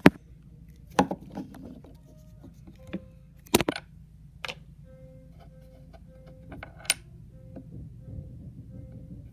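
A hand handling small objects on a wooden cutting board: a few sharp knocks and clicks as they are set down, one of them a coin placed on the wood. From about five seconds in, faint background music with a steady ticking beat comes in.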